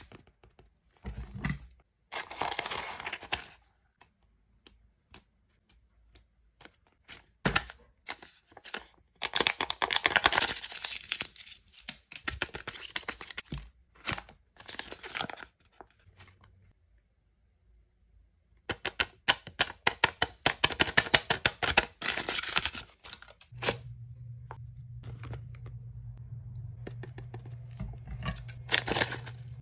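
A paper blind bag being torn open and crumpled by hand: several bursts of tearing and crinkling paper, with sharp handling clicks in between. A low steady hum comes in about two-thirds of the way through.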